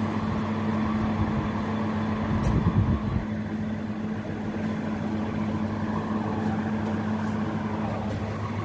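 A steady low mechanical hum, with a louder rumbling patch and a single click about two and a half seconds in.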